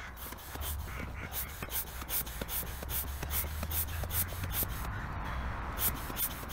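Hand barrel pump inflating an inflatable canoe: a quick, even run of hissing air strokes, a few a second, with a short pause near the end before the pumping resumes.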